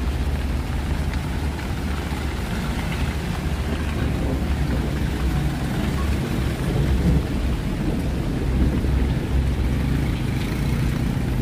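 Steady rain falling, with a constant low rumble of road traffic underneath.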